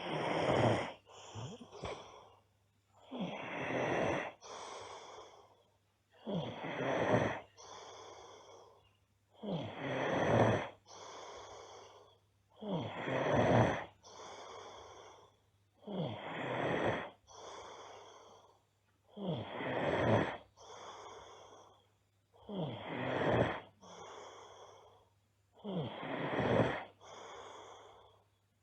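A girl snoring loudly and evenly, nine snoring breaths about three seconds apart, each loud rasp followed by a softer breath.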